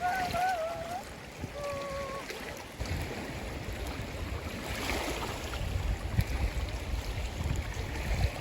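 Wind rumbling on the microphone outdoors over a steady rushing wash of noise, with a brief wavering tone in the first couple of seconds.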